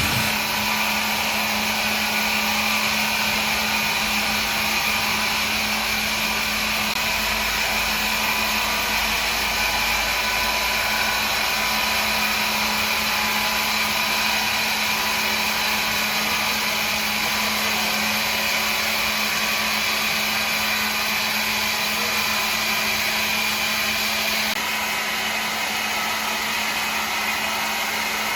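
A woodworking power machine running steadily: a motor hum under a loud, even hiss. The hiss changes abruptly near the end.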